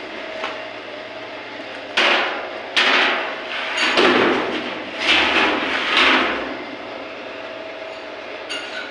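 Steady running hum of a U-type ribbon mixer's electric motor and drive, broken in the middle by a run of five loud, rough bangs about a second apart.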